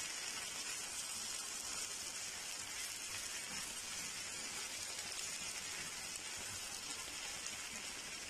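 Mutton liver pieces sizzling in oil in a nonstick frying pan as they are turned with a silicone spatula: a steady, even hiss of frying.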